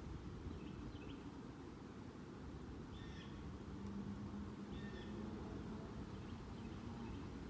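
A few short bird chirps, a second or two apart, over a low steady rumble of outdoor ambience, with a faint low hum coming in about halfway through.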